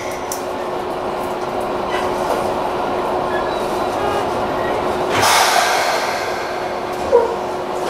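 Seibu 3000 series electric train standing at a station, heard from the cab: a steady hum of onboard equipment with one constant tone, and a short hiss about five seconds in.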